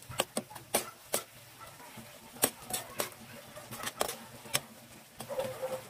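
Metal spoon stirring a sauce and vegetables in a frying pan, clinking and scraping against the pan in irregular sharp clicks.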